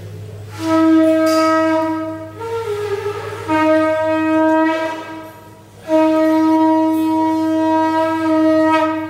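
Conch shell (shankha) blown in three long, loud, steady blasts, the last the longest, with a brief wavering lower note between the first two.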